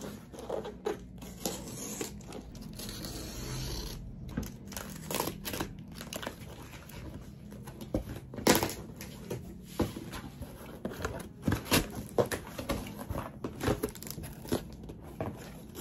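Cardboard shipping box being opened by hand: packing tape and plastic wrap tearing and crinkling, then cardboard flaps scraping and knocking in a series of sharp handling noises.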